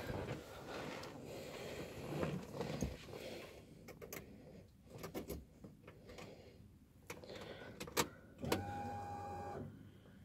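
Keys and hands fumbling at a car's ignition switch, with a few sharp clicks. Then a short, steady electric whine of about a second as the ignition is switched on. The engine is not yet running.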